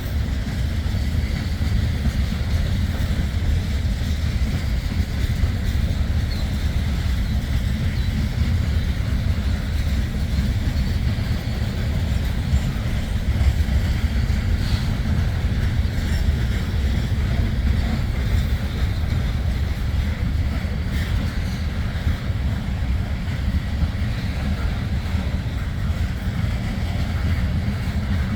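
Freight train rolling by, a steady low rumble with no horn or sudden sounds.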